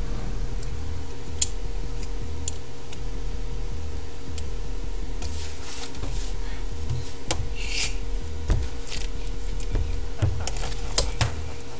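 Light clicks, taps and rubbing as blue glitter is shaken from a small plastic tube into a plastic tub of slime mixture, then a metal spoon stirring and scraping in the tub in the last few seconds. A steady low hum runs underneath.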